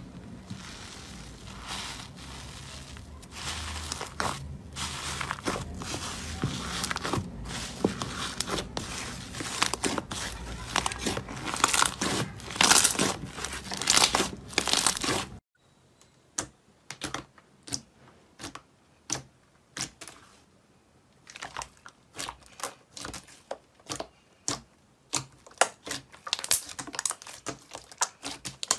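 Hands pressing and squeezing foamy slime in a plastic tub: a dense, continuous crackling of tiny bubbles popping. About fifteen seconds in it cuts to hands kneading a thick pink slime, which gives separate sharp clicks and pops in quick clusters as air pockets burst.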